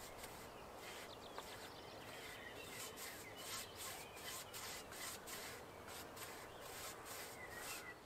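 A flat paintbrush swished back and forth over wooden deck boards, applying wood saturator in a quick run of soft scratchy strokes, several a second. Birds chirp faintly in the background.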